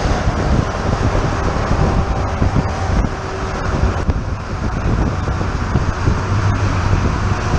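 Wind rushing over a moving camera's microphone over a loud, steady rumble of highway road and tyre noise as a truck drives on the motorway.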